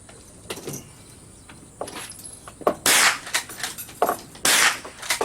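A jammed belt-fed machine gun's action being worked by hand to clear it: a series of hard metallic clacks and racking strokes, two of them much louder about three and four and a half seconds in.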